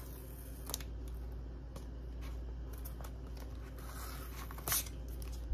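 Cardboard and paper packaging of an Apple Watch box being handled and slid apart: light rustling and scraping, with a sharper snap of card about four and a half seconds in, over a steady low hum.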